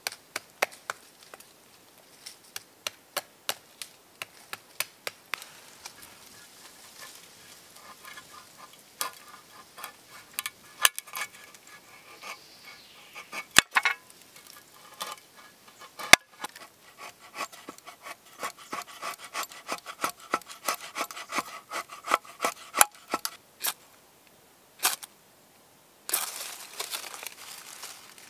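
Steel knife struck and scraped again and again against a fire-starting flint, making sharp metallic scrapes and clicks, some with a brief ringing tone, to throw sparks onto tinder. About two seconds before the end, a steady rushing hiss starts as the tinder catches flame.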